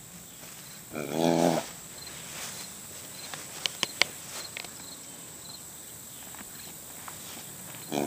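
A horse grazing, with a few sharp clicks as it tears at the grass around four seconds in. Twice, about a second in and again at the very end, a loud pitched animal call about half a second long sounds over it.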